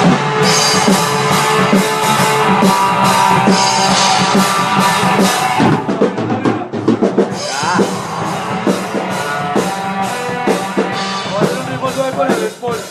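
Rock music with a drum kit and other instruments. It is dense for about the first six seconds, then thins out to separate drum hits over held notes.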